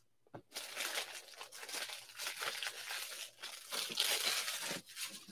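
Trading-card pack wrapper crinkling and tearing as it is ripped open, with the cards rustling out. A louder stretch comes about four seconds in.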